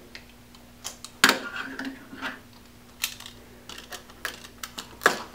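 Box cutter slitting the packing tape on a small cardboard box, with the box handled: scattered sharp clicks and scrapes, the loudest about a second in and another near the end.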